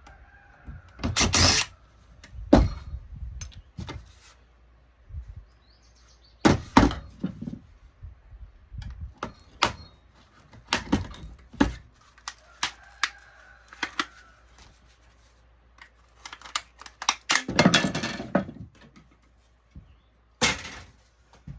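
Irregular sharp knocks, clicks and cracks of hand tools and metal and plastic parts being handled and broken loose while taking apart an electronic touchscreen panel for scrap, with a denser clatter about three-quarters of the way in.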